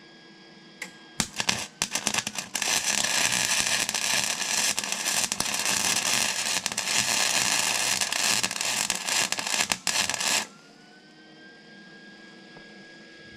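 Wire-feed welder arc welding steel: a few short sputtering starts about a second in, then one steady crackling bead for about eight seconds that cuts off suddenly.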